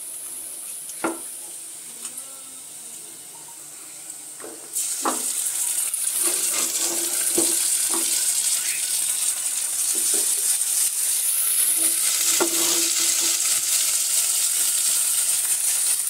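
Onion-and-spice gravy sizzling in a hot frying pan while a metal spoon stirs, scrapes and taps the pan. About five seconds in, the sizzle jumps suddenly much louder as leftover beef curry goes into the pan, and it stays loud while the spoon keeps working.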